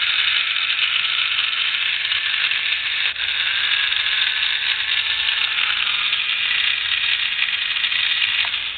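Battery-powered toy impact wrench running: its small electric motor and gearing whirring steadily, high and buzzy. It cuts off abruptly near the end, when the battery door comes loose and breaks contact.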